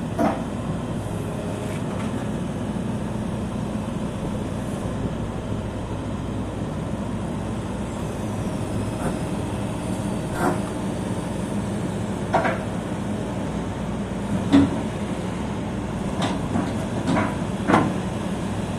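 Hitachi ZX140W-5B wheeled excavator's diesel engine running steadily, with a few sharp clunks from the machine, several of them bunched near the end.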